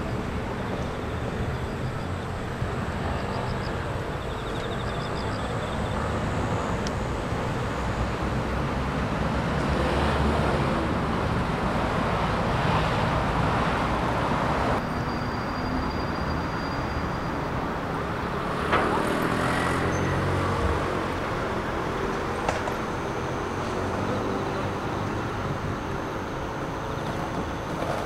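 Road traffic on a city street at night: a steady hum of cars, with several vehicles passing and swelling louder for a few seconds at a time.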